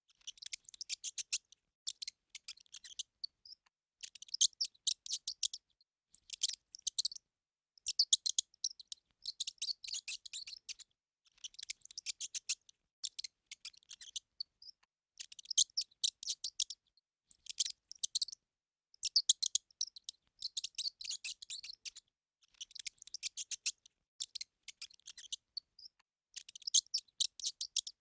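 Hamster squeaking in quick chittering bursts of about a second each, made of rapid high clicks and repeated with short pauses.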